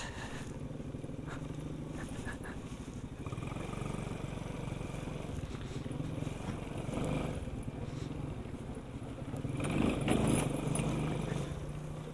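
Sanya X50 110cc motorcycle engine running steadily under way on a dirt track, its note swelling louder about ten seconds in.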